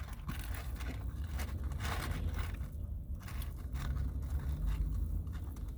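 Close-miked eating sounds: biting and chewing a sandwich with scattered clicks and rustles, over a steady low rumble.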